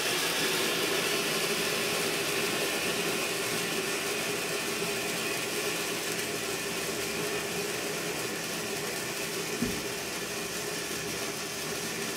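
Garden firework fountain burning with a steady hiss of spraying sparks that slowly eases off, with one small pop about two-thirds of the way through.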